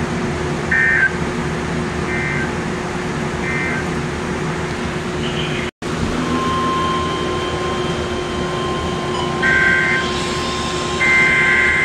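Emergency Alert System digital data bursts, the harsh two-tone warble of SAME code. Three short end-of-message bursts come about a second apart, then after a brief cut a faint steady tone begins and two longer header bursts open the next alert near the end. A steady hum and hiss sits beneath them.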